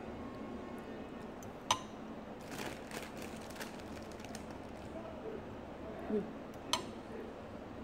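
Eating at the table: chewing and mouth noises with two sharp clicks of a metal fork against a ceramic bowl, one about two seconds in and one near the end, and a brief hum-like voice sound just before the second click.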